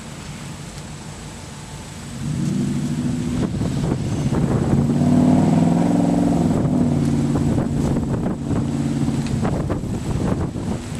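Air horn of an approaching CSX diesel freight locomotive sounding, a chord of several steady tones. It comes in loud about two seconds in and eases off near the end.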